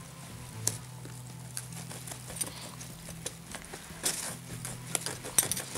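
Kitchen knife cutting through a whole fish and its bone on a wooden cutting board: scattered sharp knocks, roughly one a second.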